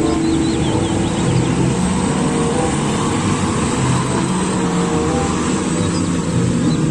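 Komatsu HD785 mining haul truck driving past on a dirt haul road: its large diesel engine running steadily under load, with heavy tyre and gravel noise, the engine note shifting in pitch partway through.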